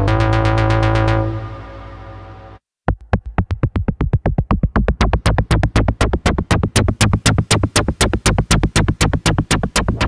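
Roland Juno-60 software synthesizer playing its 'SQ Bassey' preset, a sustained bass-heavy chord that fades out about two seconds in. After a brief silence, the 'SQ Squelchy' preset starts a fast repeating sequence of short notes, about five a second.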